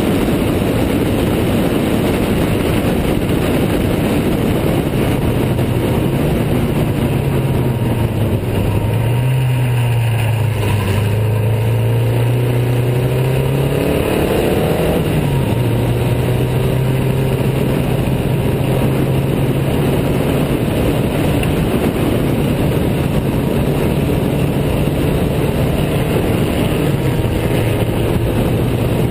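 Riley 12/4 Special's four-cylinder engine running hard at racing speed, heard from on board with heavy rushing noise from the wind. The engine note drops a little around nine to eleven seconds in, climbs again about fourteen seconds in, then holds steady.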